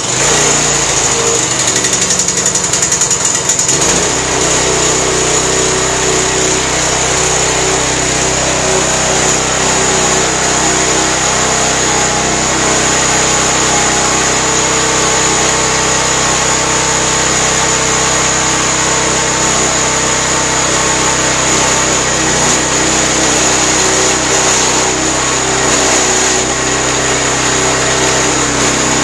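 A new Predator single-cylinder small engine, just caught on the first pull without priming the carburetor, runs loudly and steadily, settling into an even run after the first few seconds.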